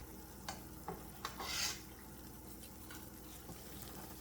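Pot of milkweed boiling in water, a faint steady bubbling, with a few light clicks in the first second and a short hiss about one and a half seconds in.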